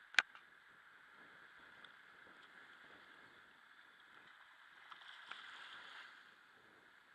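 Small waves lapping and washing over a rocky shore, faint and steady, swelling for about a second around five seconds in. A single sharp click comes just after the start.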